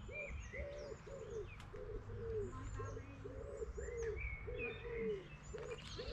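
Birdsong: an even run of short, low notes repeating about three times a second, with quick higher chirps and whistles from other birds over it.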